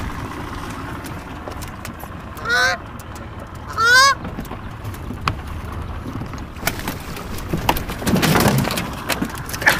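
Canada goose honking twice, about two and a half and four seconds in, each call rising then falling in pitch; the second is louder. Near the end comes a rush of noise lasting about a second.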